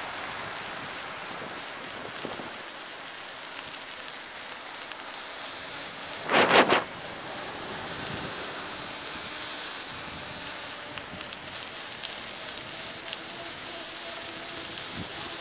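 Steady rushing wind and tyre noise of a bicycle ride in city traffic, with a short loud burst of noise about six seconds in. Light crackling ticks come in the second half, as the tyres roll over gritty, icy road.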